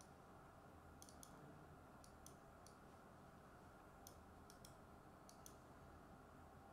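Faint computer mouse clicks, about ten of them in small groups, over near-silent room tone.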